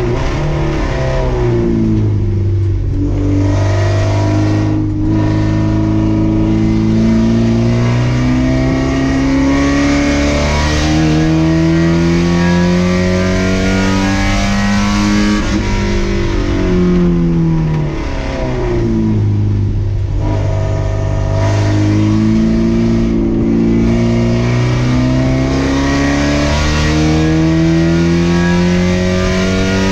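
Race car engine at full throttle, the pitch climbing through the gears with a brief break at each upshift. About fifteen seconds in the revs fall away as the driver lifts and downshifts, then it accelerates hard again.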